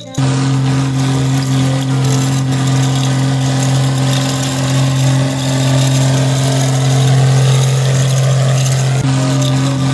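Steady, loud engine-like drone with a hiss over it, starting abruptly.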